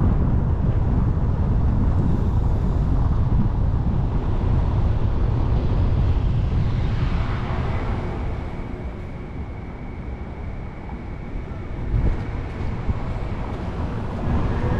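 Low, steady rumble of a car driving slowly along a brick-paved street, with wind on the microphone. It eases off for a few seconds in the middle, then picks up again.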